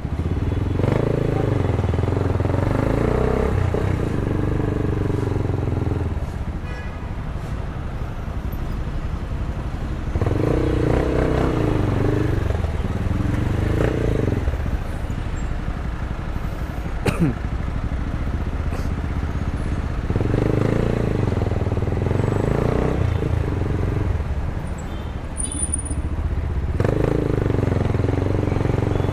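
Motorcycle engine heard from the rider's seat, pulling away in four stretches of a few seconds each and easing off between them as it moves through stop-and-go traffic. About halfway through there is one short, sharp sound that drops quickly in pitch.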